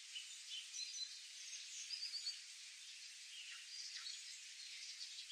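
Faint outdoor ambience: short, high bird chirps scattered over a steady high hiss.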